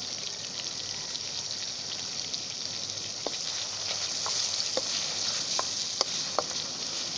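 Chicken curry sizzling steadily in an iron karahi as it is stirred with a wooden spoon. Sharp clicks of the spoon against the pan start about three seconds in.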